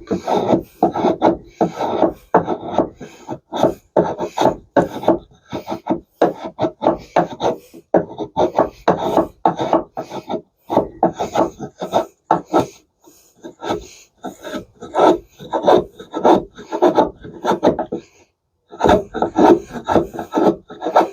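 Kukri blade being drawn across a sharpening surface in quick, repeated rasping strokes, several a second, with a few short pauses.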